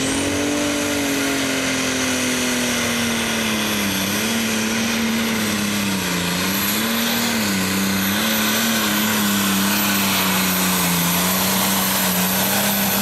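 John Deere Pro Stock pulling tractor's single-turbo diesel engine at full throttle under load, dragging the weight sled. The engine note sags and recovers in pitch several times as it pulls.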